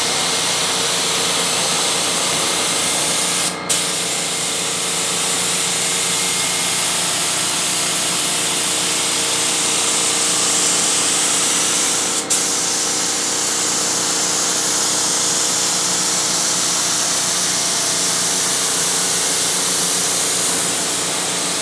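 Paint spray gun spraying primer: a steady, loud hiss with a steady hum underneath, broken off for a moment twice.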